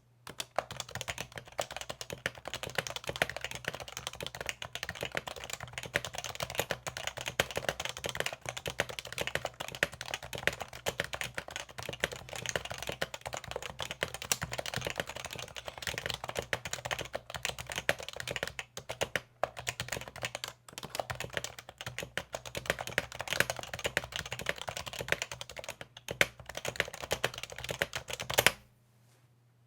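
Fast, continuous typing on an HHKB (Happy Hacking Keyboard): a dense run of key clicks that stops suddenly near the end.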